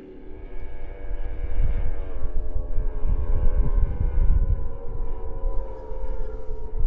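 Powerboat engine running loudly, swelling about a second in, its pitch slowly falling over several seconds, over a heavy low rumble.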